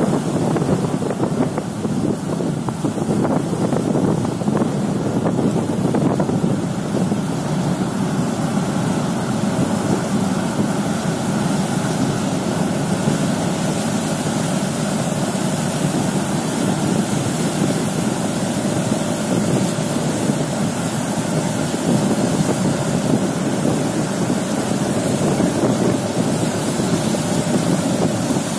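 Car ferry Nissos Mykonos departing under power: a steady low churning of its engines and propeller wash, with wind buffeting the microphone.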